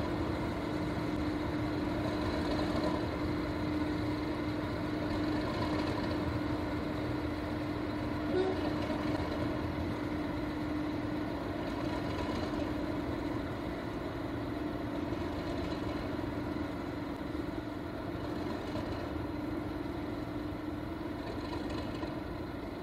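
A pair of Network Rail Class 97/3 diesel locomotives (rebuilt Class 37s with English Electric engines) running, a steady engine drone with a constant hum over a low rumble that eases a little past the middle.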